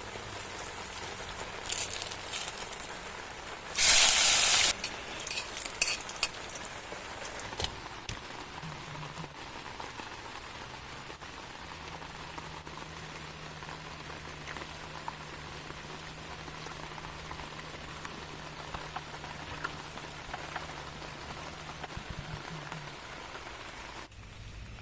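Fatty pork frying in a pot, a steady sizzle with scattered clicks of stirring. About four seconds in there is a loud, second-long burst of hissing.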